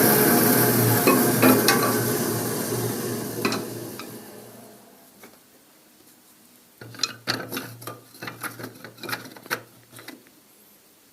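Automatic milling machine for cutting Hoffmann spacers in beehive frame side bars winding down, its running noise fading away over about five seconds. About two seconds later a low hum starts with a quick run of clicks and clatter for about three seconds, then stops.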